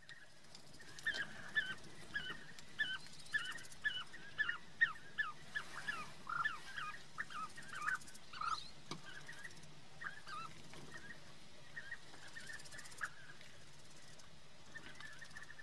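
Bee-eater calling: a quick run of short, rolling calls for about seven seconds, then fainter, scattered calls.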